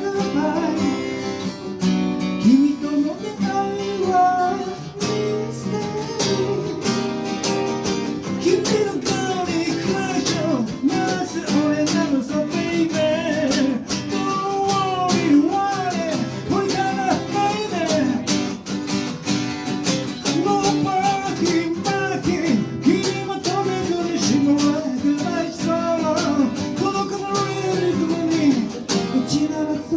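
Live acoustic guitar music: chords ringing steadily under a melody line that bends up and down in pitch, playing on without a break.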